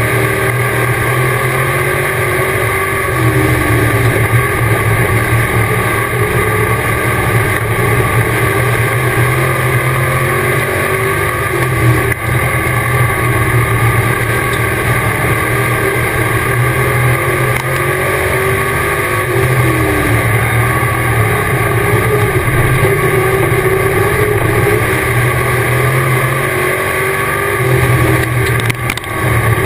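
Dirt-track race car's engine at racing speed, heard from inside the cockpit, its pitch dropping and climbing again every several seconds as the car lifts for the turns and accelerates down the straights.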